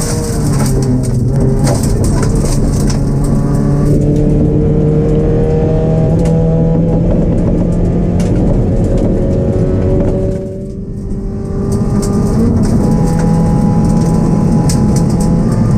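Rally-prepared Ford Focus engine heard from inside the cabin, pulling under load on a gravel stage. Its pitch climbs slowly, dips for about a second as the throttle is lifted about ten seconds in, then climbs again. Stones from the gravel road tick against the underbody now and then.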